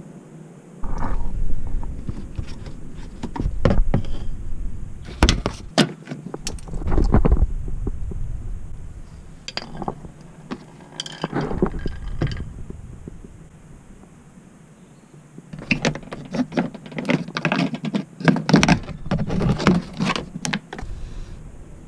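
Irregular metal clinks, clicks and knocks of hand tools and parts being handled during engine repair work, coming in clusters with short pauses between them.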